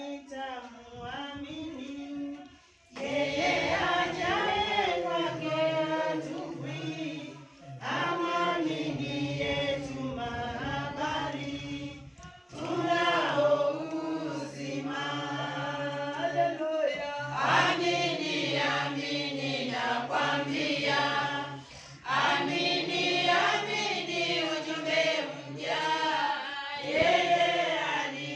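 A congregation singing together, in phrases of several seconds with short breaks between them.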